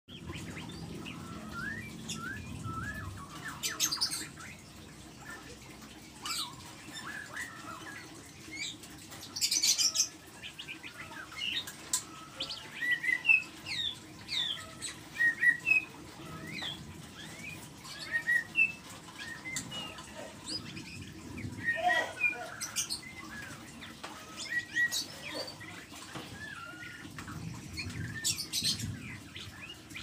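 Caged white-rumped shama singing: a run of short, varied chirps and whistles, broken by a few short harsh sounds.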